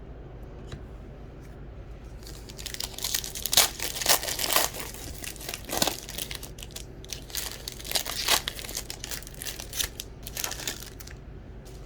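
Foil wrapper of a retail baseball card pack being torn open and crinkled by hand, in irregular crackling bursts that start a couple of seconds in and run until near the end, with a short lull midway.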